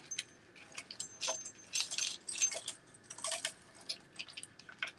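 Silver-tone metal fashion jewelry clinking and jingling as it is handled: a scatter of light, short metallic clinks, some with a brief high ring.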